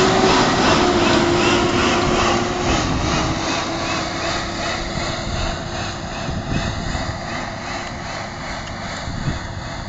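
A vehicle engine running steadily, its pitch dipping slightly about a third of the way in and the sound gradually fading as it moves away.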